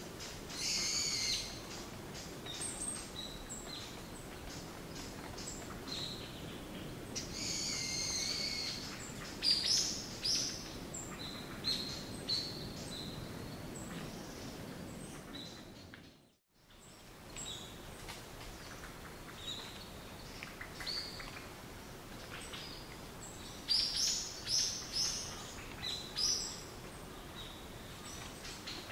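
Birds chirping and calling in short high bursts over a steady low background rush, as on a nature-sound recording. About halfway through, the sound fades briefly to near silence and comes back.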